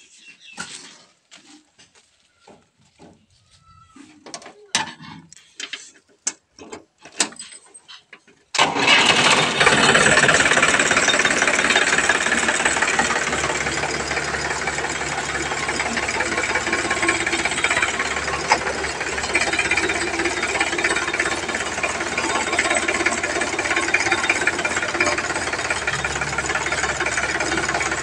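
Sonalika DI 745 III tractor's diesel engine starting abruptly about eight seconds in and then running steadily. Before it starts there are only scattered light clicks and knocks.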